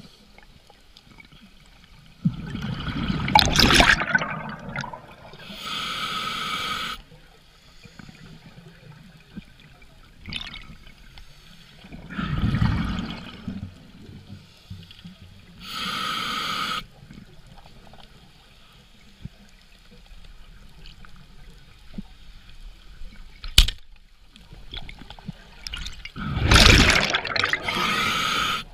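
Scuba diver breathing through a regulator underwater: two hissing inhalations through the demand valve and three bursts of exhaled bubbles, slow and several seconds apart. A single sharp snap about two-thirds of the way through.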